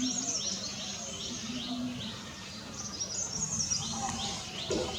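A small bird chirping: quick runs of short, high notes, busiest at the start and again in the second half, with a quieter stretch in between.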